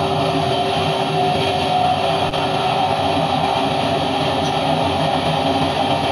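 Fighter jet engine and airflow noise heard inside an F/A-18 cockpit during aerobatic flight: a steady, loud rush with a constant whine.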